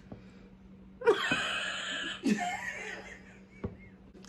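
A woman laughing breathily for about two seconds, starting about a second in.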